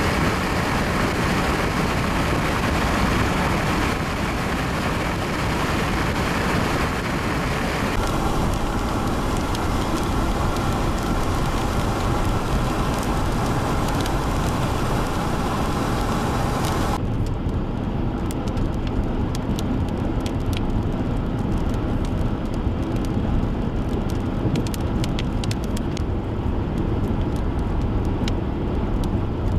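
Steady rumbling noise of wind and a vehicle with no voices. It changes abruptly twice, about eight and seventeen seconds in. After the second change the hiss drops away, leaving a low rumble with faint scattered clicks.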